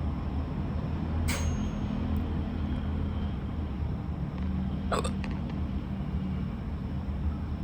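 A person hiccuping twice, once about a second in and again about five seconds in, each a short sharp catch. A steady low hum runs underneath.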